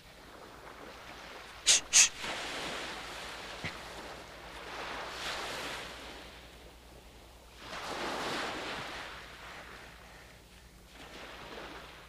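Surf washing onto a beach in slow, rising and falling swells. Two sharp clicks come about two seconds in.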